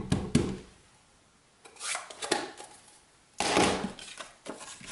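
Stamp ink pad dabbed against a plastic embossing folder: two last sharp taps at the start. Then two short bursts of scuffing and rustling, about two and three and a half seconds in, as the pad and folder are handled.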